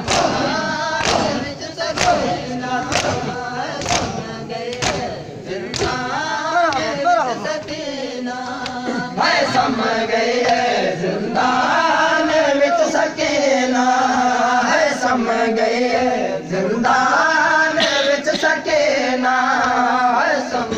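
A crowd of men chanting a noha (mourning lament) together in unison. Sharp hand-slaps of chest-beating mark the beat about once a second for the first six seconds, then the chanting carries on with only a few scattered strikes.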